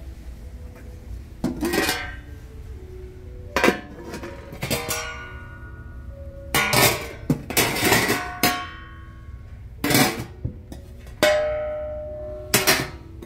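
Metal tongs clanking against stainless steel food pans, a string of sharp ringing clinks at irregular intervals, bunched in the middle. Soft plucked-guitar music plays underneath.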